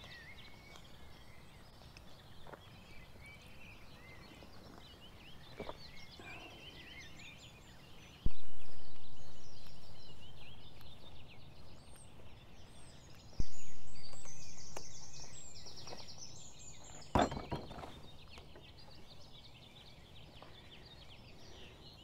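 Dawn chorus of songbirds, many overlapping chirps and trills throughout. Two sudden low thumps come about eight and thirteen seconds in, and a brief loud harsh call is heard near seventeen seconds.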